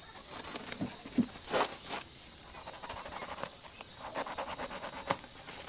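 A plastic-wrapped, taped cardboard parcel being cut and torn open with a knife: crinkling plastic, ripping cardboard and scraping of the blade in irregular bursts, the loudest about one and a half seconds in.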